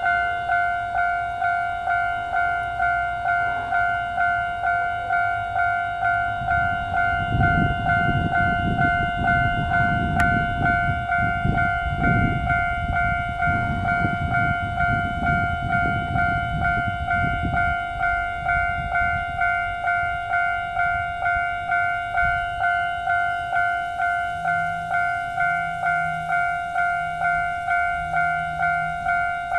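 Electronic level-crossing warning bell ringing steadily, about one and a half strokes a second. The low rumble of a TRA DR3000 diesel multiple unit swells under it from about seven seconds in and fades about eighteen seconds in as the express passes.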